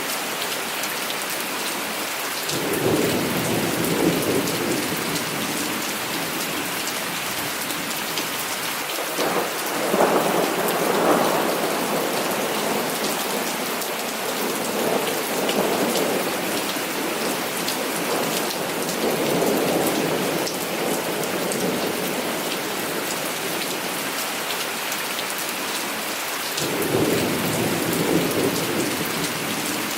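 Heavy rain falling steadily, with five rolls of thunder rumbling in and out over it. The loudest roll comes about a third of the way through.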